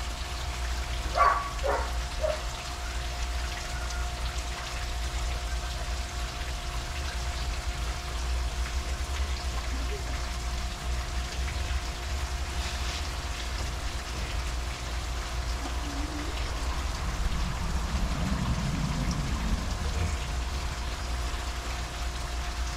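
Paintbrush scrubbing paint onto a rough stucco wall, a steady scratchy swishing, over a low steady hum.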